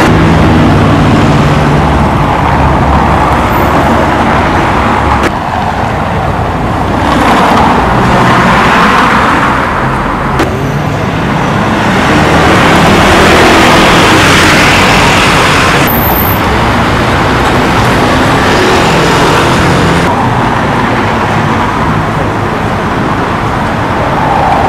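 Road traffic in a city street: cars passing in a steady flow, swelling and fading several times.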